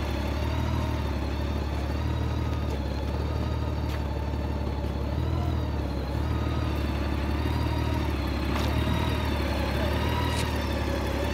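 Honda Gold Wing GL1800's flat-six engine idling steadily.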